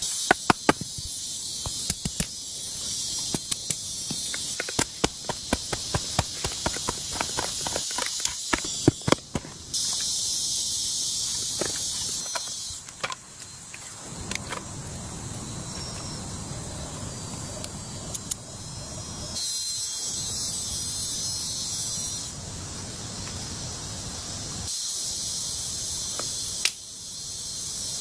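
High insect buzzing that comes and goes in spells. Through the first ten seconds there is a rapid run of sharp clicks and knocks.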